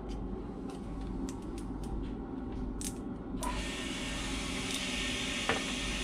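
Steady low machinery hum with a few faint clicks of small metal parts being handled; about halfway through, a steady hiss joins in.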